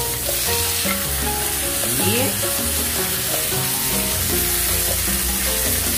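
Steak sizzling steadily in butter and garlic in a cast iron skillet, with background music underneath.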